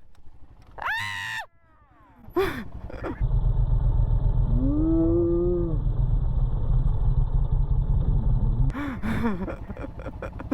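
Royal Enfield Himalayan single-cylinder motorcycle engine rumbling loudly as the bike loses grip on wet rocks and goes down, with a drawn-out cry from the rider over it. There are two short yells about a second and two seconds in, and the rumble cuts off suddenly near the end.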